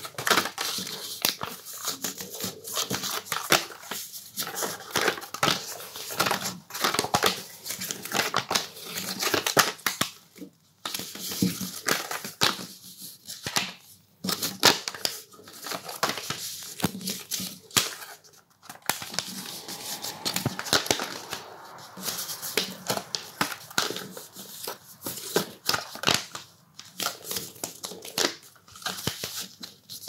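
Sheets of coloured paper rustling and crackling as they are folded accordion-style and the creases are pressed flat by hand, in irregular bursts with a few short pauses.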